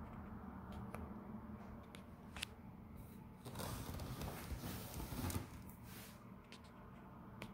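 Faint handling sounds of a cardboard manga box set: a hand rubbing and scraping on the cardboard for about two seconds in the middle, with a few light taps and clicks before and after.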